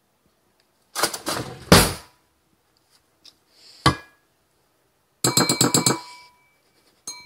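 Metal spoon scraping cream cheese from a plastic tub and clinking against a ceramic bowl: a scrape and thud, a single ringing ding about four seconds in, then a quick rattle of about ten clinks, and a last clink near the end.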